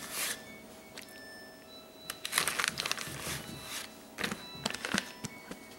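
Plastic vacuum-sealer bag rustling as it is handled and slid over a countertop, in three short bursts, with a few light clicks between them.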